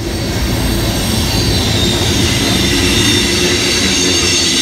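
Coal train's hopper cars rolling past close by: a steady rumble of steel wheels on rail, with a thin, steady high-pitched wheel squeal over it.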